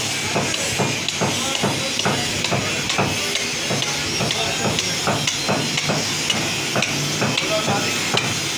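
A butcher's cleaver chopping through a goat carcass's ribs and spine on a wooden block. It makes a fast, even run of sharp knocks, about two to three blows a second, over a steady background hiss.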